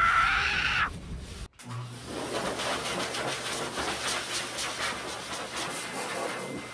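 Pet grooming blower running through its hose, a steady rushing hiss of air with a low motor hum, starting about a second and a half in as it blows the dirt out of a bichon's coat.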